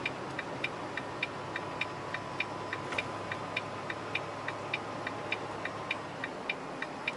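A truck's turn-signal indicator ticking in the cab, with even clicks at about three a second over the steady low hum of the running truck.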